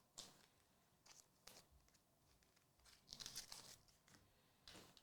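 Faint tearing and crinkling of trading-card pack wrappers being opened, in several short rustles with a longer one past the middle.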